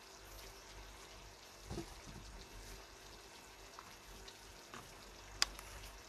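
Faint sizzling from a pan of pork adobo with potatoes and carrots simmering. There is a soft knock about two seconds in and a sharp click near the end.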